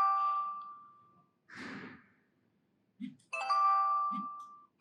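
SONOFF TX Ultimate touch wall switch's built-in speaker playing its chime sound effect as the panel is pressed: a bell-like cluster of bright tones that rings and fades over about a second, heard twice, the second about three seconds in. A short soft noise burst comes between the two chimes.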